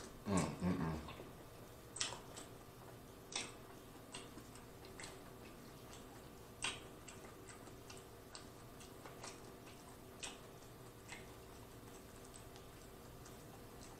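Close-up eating sounds while lobster tails are being eaten: a short hummed "mmm" in the first second, then scattered soft clicks and smacks from the mouth and from hands working the lobster tails.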